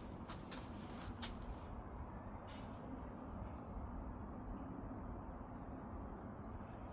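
Crickets trilling steadily in the background, a faint continuous high-pitched tone, with a few light clicks in the first second or so.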